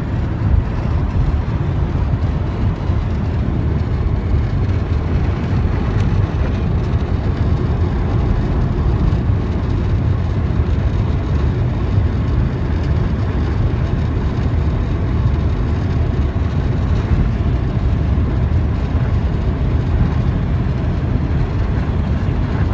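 Steady low roar inside the cabin of a VW T6 bus with the 2.0 TDI 204 hp twin-turbo diesel, running flat out in sixth gear at close to 200 km/h: engine drone mixed with wind and tyre noise.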